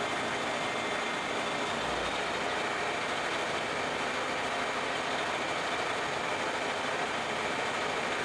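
Vertical milling machine running, its 3/4-inch end mill roughing a groove in a metal part while the table feeds back and forth: a steady machine whir with cutting noise. The sound is sped up four times along with the footage.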